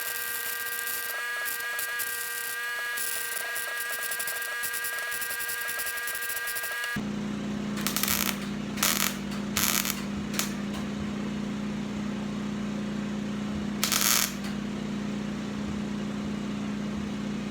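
Electric welding on thin 18-gauge sheet steel: a continuous buzzing, crackling weld for about seven seconds, then, over a low steady hum, five short tack welds of half a second or less, four close together and one a few seconds later.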